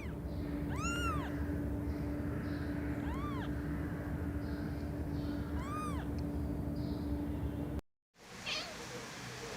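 Domestic cat meowing three times, each call about half a second long and rising then falling in pitch, over a steady low hum. Near the end the sound cuts off briefly and another short cat call follows.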